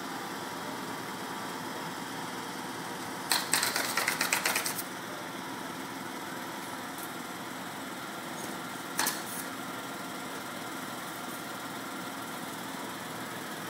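Truck-mounted crane's engine running steadily as it hoists a roof truss. A quick rattling clatter comes about three seconds in, and a single sharp knock comes around nine seconds.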